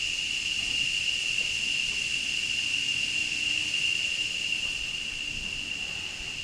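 Insects droning: one steady high-pitched note with a fainter hiss above it.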